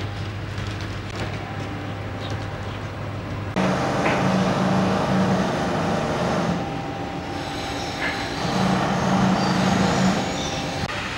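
Outdoor city noise with a steady low engine-like hum. It turns abruptly louder about three and a half seconds in, and a pulsing low drone comes in twice afterwards.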